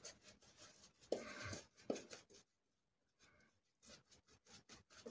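Faint scratchy swishing of a badger-hair shaving brush working lather over the face and beard, a few soft strokes.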